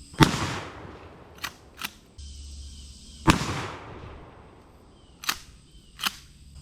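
A 20-gauge pump-action shotgun fired twice, about three seconds apart, each shot echoing away. After each shot come two sharp clacks a fraction of a second apart as the pump is worked back and forward to chamber the next shell. Crickets chirp faintly underneath.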